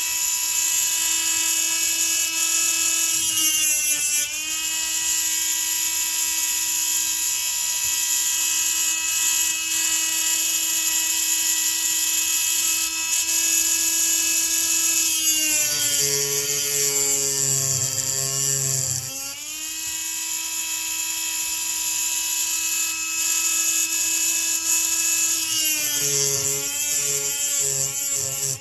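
High-speed rotary grinding tool whining steadily while grinding a chainsaw piston for porting. Its pitch drops as it bogs under load about four seconds in, for a few seconds in the middle, and in short dips near the end.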